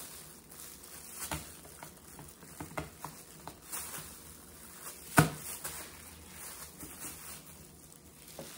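Chef's knife cutting through raw chicken wing joints on a cutting board: scattered soft taps and clicks as the wings are handled and cut, with one sharp knock about five seconds in.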